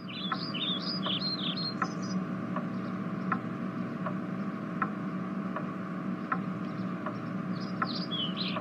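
Room ambience: a clock ticking evenly, about once every three-quarters of a second, over a steady low hum. Small birds chirp in quick, high, falling notes during the first two seconds and again near the end.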